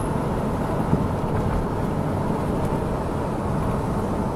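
Steady low rumble of vehicle noise, heard from inside a car, with a single knock about a second in.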